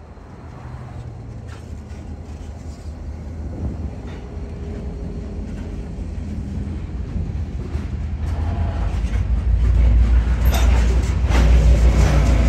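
Freight train passing close by: the diesel locomotives, then loaded covered hopper cars rolling over the rails. The deep rumble grows steadily louder, becoming strongest near the end.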